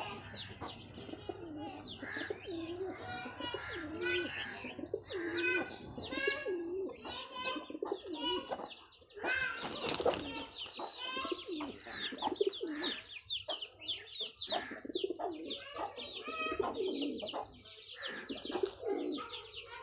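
Pigeons cooing among a dense, continuous chatter of small birds' chirps.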